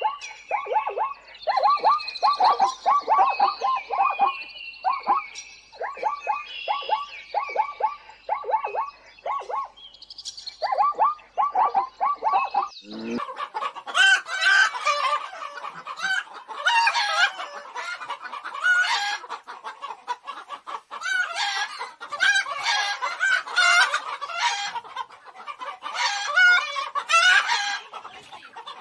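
For about the first half, rapid trains of short, repeated falling calls from an animal. Then, after a sudden change, a flock of chickens clucking and cackling over one another.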